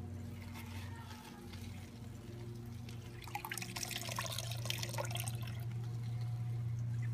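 Water sloshing and dripping as a mesh bag of wet wool fleece is squeezed and lifted out of soapy wash water in a plastic tote, with water streaming off the bag; the splashing is loudest about halfway through. A steady low hum runs underneath.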